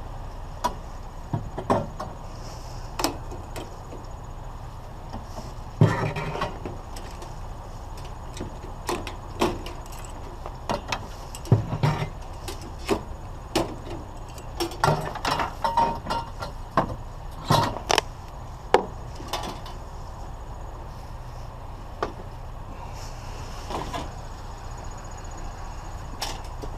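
Irregular metal clanks, clicks and rattles as the light fitting of a discarded fan is handled and taken apart by hand, over a steady low rumble.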